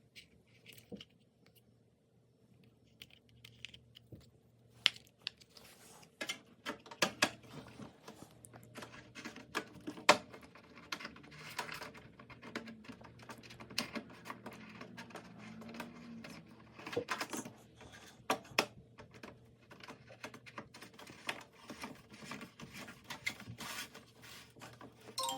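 Irregular clicks, taps and scraping of hands handling parts and tools while working on a dishwasher, with a few sharper clicks standing out, over a faint steady hum.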